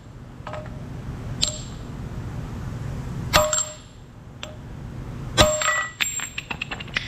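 Hammer blows on the steel of a Caterpillar D10R final drive carrier, tapping a part that sits slightly high down flush. Separate strikes a second or two apart, each with a short metallic ring, the two loudest about three and five seconds in, followed by a quick run of light ticks near the end.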